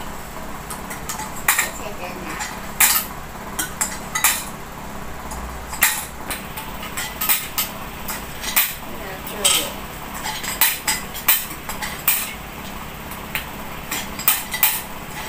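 Coins clinking as they are dropped one at a time through the slot of a metal can coin bank and picked up from a small pile on a wooden table: sharp, irregular metallic clinks, about one or two a second.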